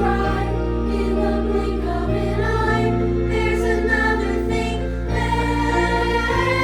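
Musical-theatre song: a chorus of young voices singing long held notes together over a backing track.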